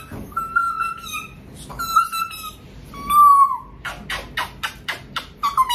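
A Chihuahua whining in a string of high, drawn-out cries, each about half a second, one sliding down in pitch about three seconds in. Near the end comes a quick run of short clicks, and then more whines.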